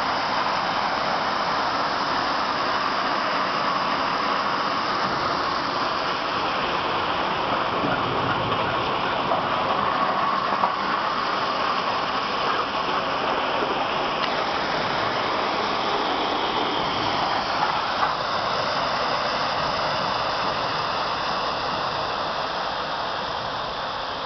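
Crushed-stone ballast pouring steadily out of the bottom gates of slowly rolling open-top railway hopper cars onto the track, a continuous rushing hiss like running water, mixed with the train rolling. A couple of brief knocks stand out, and the rush eases off slightly near the end.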